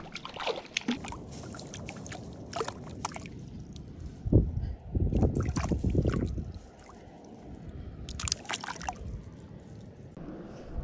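A cutthroat trout being released from a rubber landing net at the water's edge: water sloshing and splashing, loudest in a burst about four to six seconds in, with scattered dripping and handling noises around it.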